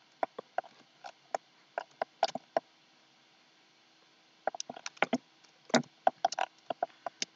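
Computer mouse clicks and scroll-wheel notches: scattered light, sharp clicks in two groups with a pause of about two seconds between them. A faint steady hum runs underneath.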